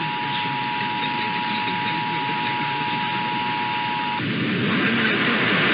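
Emergency Alert System attention signal: the two-tone alert (853 Hz and 960 Hz sounding together) holding steady over a hissy radio signal, then cutting off about four seconds in. After it, only the noisy broadcast audio is left, ahead of the test's voice message.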